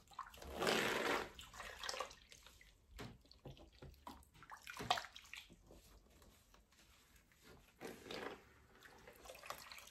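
Water splashing and dripping in a plastic bin as a wig is dunked in a watercolor dye bath and lifted out. The biggest slosh comes about half a second in, with smaller splashes and drips around five and eight seconds.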